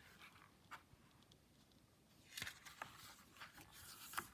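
Near silence: room tone with a few faint clicks and a brief rustle.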